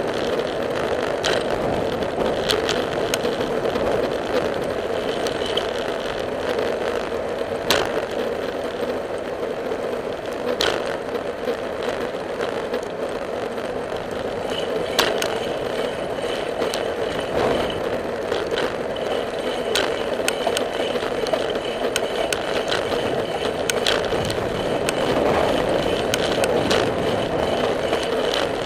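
Riding noise from a camera on a moving bicycle: a steady rushing of wind and tyres on pavement, broken by sharp clicks and rattles from the bike every few seconds.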